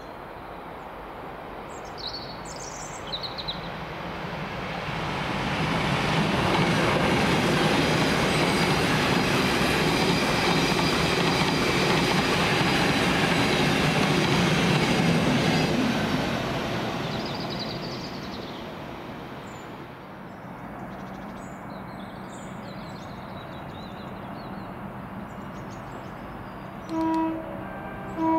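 A train passing through a station at speed: a rushing rumble that builds over a couple of seconds, stays loud for about ten seconds, then fades away. Near the end a train horn gives two short toots. Faint bird chirps can be heard before and after the pass.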